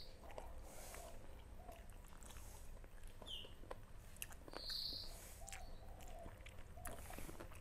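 Faint sounds of people eating by hand: chewing, lip smacks and small clicks. A bird chirps briefly, twice, in the middle.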